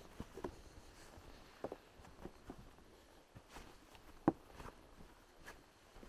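Footsteps on a forest floor: irregular crunches and small twig snaps, with one sharper crack about four seconds in.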